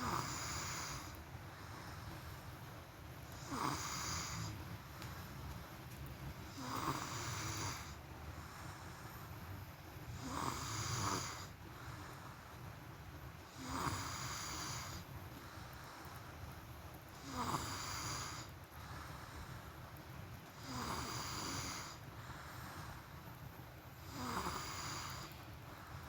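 A person snoring in an even rhythm: one snore about every three and a half seconds, eight in all.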